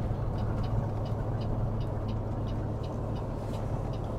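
Caterpillar C15 diesel of a Peterbilt 389 running steadily under way, a low even drone with road noise, and faint light ticking about three times a second.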